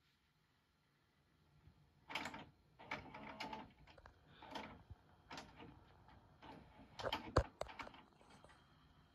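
A string of irregular clunks, clicks and scrapes, about eight in all, starting about two seconds in; the loudest is a sharp knock about seven seconds in.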